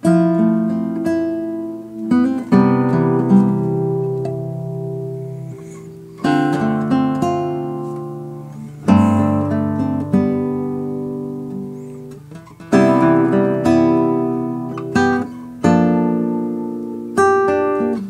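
Classical guitar played solo fingerstyle: plucked chords and arpeggiated notes left to ring and fade, with a fresh chord struck every second or two.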